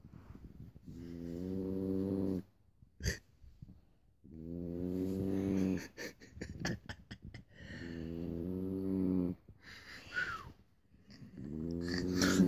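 Snoring: three long, low snores about three seconds apart, each growing louder as it goes. A few sharp clicks fall between them.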